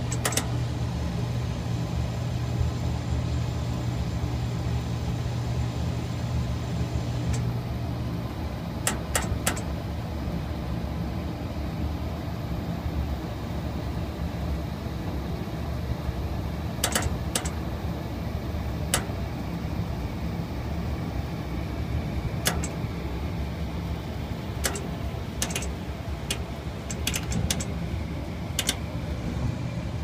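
Gas furnace running with a steady low hum, with scattered sharp clicks now and then.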